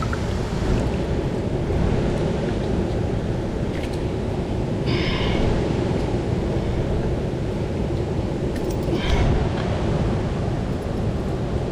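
Steady rushing noise of creek water, with wind rumbling on the microphone. Two brief higher sounds come through about five and nine seconds in.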